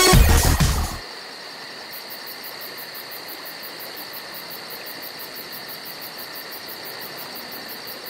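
Electronic music cuts off about a second in, leaving insects droning in a steady high-pitched chorus with a fast, even pulsing.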